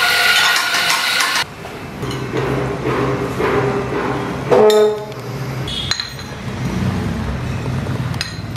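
An electric burr coffee grinder runs and cuts off about a second and a half in. Then a metal spoon scrapes and clinks against a glass dish of ground coffee, with one loud ringing clink about halfway through.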